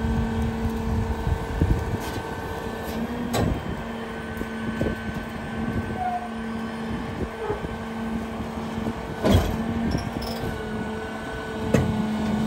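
McNeilus rear-loader garbage truck running its packer cycle: a steady hydraulic whine over the idling diesel engine as the packer blade sweeps the hopper and compacts a Christmas tree. A few sharp knocks sound, the loudest about three and nine seconds in.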